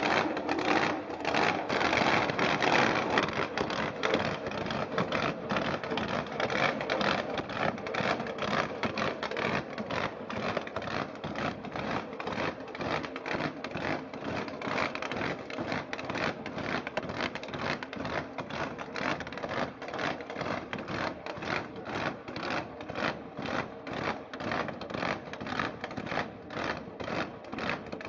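Toy RC monster truck's small electric motor and plastic gearbox running under load, with a fast, even clatter of a few pulses a second. It is louder and denser for the first few seconds.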